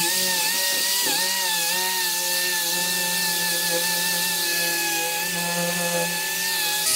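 Electric random orbital sander with dust extraction running as it sands a solid wood worktop: a steady whine over a hiss, dipping briefly in pitch about a second in as the pad bears on the wood.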